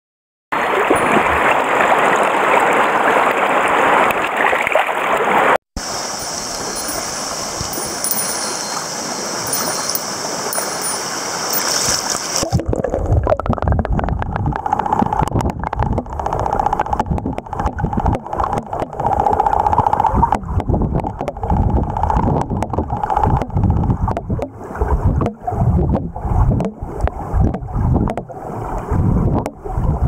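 Mountain stream water rushing, heard first in open air with a high steady hiss over it. About twelve seconds in it changes to the stream heard through a submerged camera: a muffled low rumble with irregular knocks and clicks of current and bubbles against the housing.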